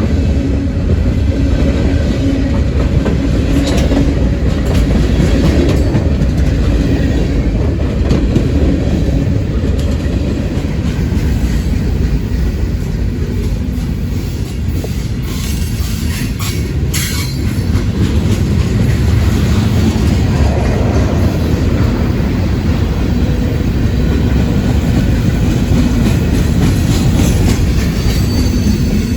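A train rolling past close by: a steady heavy rumble of wheels on the rails, with a few sharp clicks about halfway through.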